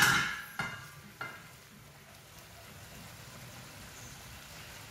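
Tomato gravy sizzling and bubbling in a nonstick pan over a gas flame. A loud sizzle fades over the first half-second as the lid comes off, followed by two light clicks and then a soft, steady sizzle.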